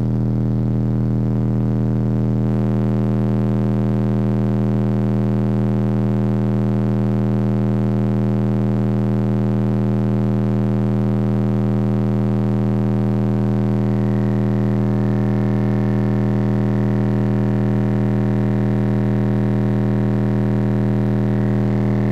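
Two 8-inch Savard subwoofers in a ported box playing a steady 40 Hz test tone at several hundred watts during an SPL test. It is heard as a loud, unbroken low hum with many overtones.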